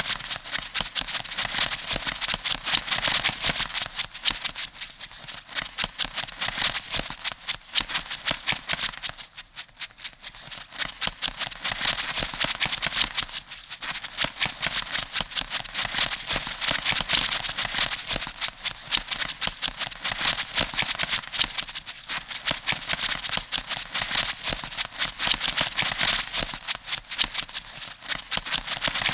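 Crab sound effect: a dense, rapid clicking rattle like scuttling legs or snapping claws, easing off briefly twice.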